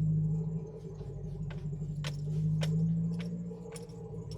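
Jeep Wrangler TJ engine running at low speed in low range second gear, a steady hum that swells a little in the middle, with a few sharp clicks and light rattles.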